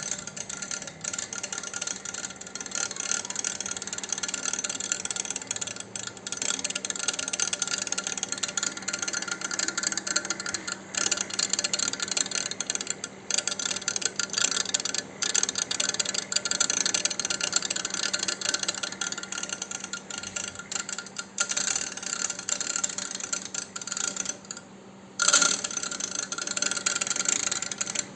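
A machine running with a continuous fast mechanical rattle over a steady hum. The noise drops away briefly near the end, then comes back louder.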